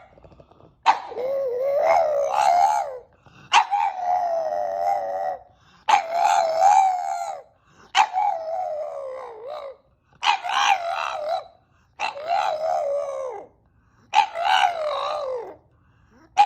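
A dog howling in a series of about seven long, wavering calls, each a second and a half to two seconds long, several sagging in pitch as they end.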